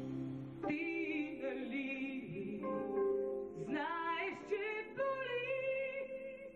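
Woman singing a Bulgarian estrada pop song live into a microphone over band accompaniment, drawing out long notes with vibrato.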